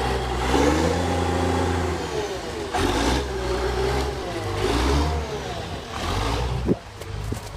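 Forestry skidder's diesel engine running under load as the machine drives, its revs rising and falling several times. A sharp knock comes near the end, then the engine drops quieter.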